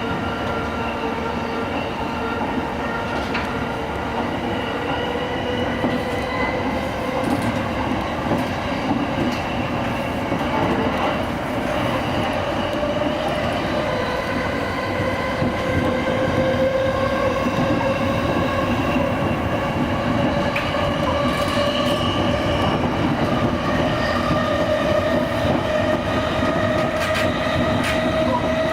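Electric commuter train running on the rails, its traction motors whining in several tones that climb slowly in pitch as the train picks up speed, over a steady rumble of wheels on track.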